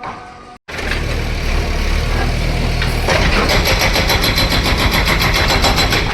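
Heavy diesel machinery engine running at a steady loud level. About three seconds in, a rapid, regular metallic clatter of several strikes a second joins it.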